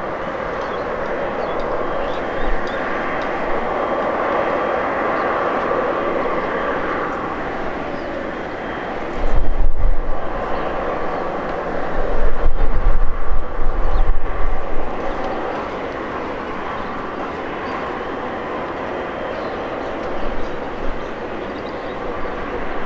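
Widebody twin-jet airliner's engines running steadily at taxi power as it rolls slowly after landing, a continuous jet roar and whine. Loud low buffeting from wind on the microphone cuts in about nine seconds in and again from about twelve to fifteen seconds.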